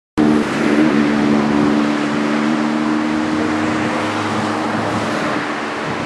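A motor vehicle's engine running steadily close by, its hum strongest over the first couple of seconds and then fading, over a continuous rush of surf and wind.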